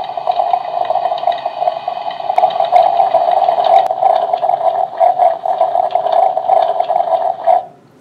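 Just Like Home toy coffee maker playing its electronic brewing sound effect: a steady warbling tone that imitates coffee brewing and cuts off suddenly near the end.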